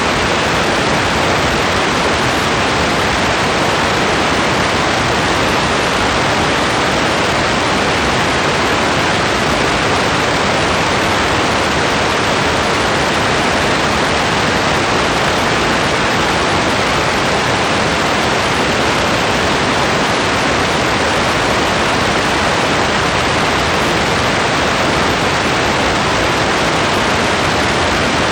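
Steady heavy rain falling, an even, unbroken hiss with no separate drops or thunder standing out.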